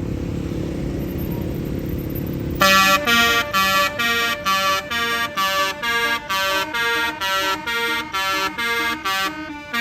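A bus engine idles steadily. About two and a half seconds in, a telolet Basuri multi-tone bus horn starts playing a quick melody of short notes, about two a second, stepping up and down in pitch.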